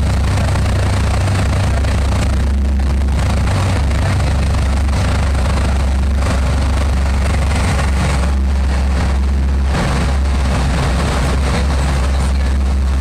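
Steady road noise from inside a vehicle driving at motorway speed through a road tunnel: a loud, constant low rumble of engine and tyres with a hiss of tyres on the road.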